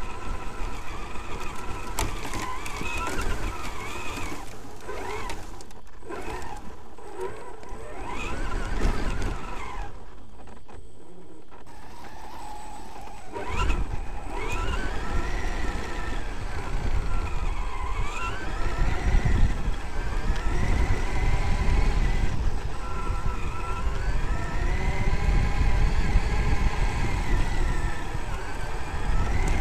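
Traxxas X-Maxx RC monster truck's brushless electric motor and drivetrain whining, the pitch rising and falling as the truck speeds up and slows, over a low rumble from the tyres and chassis on rough grass. The whine drops away for a couple of seconds about ten seconds in, then the truck accelerates hard again.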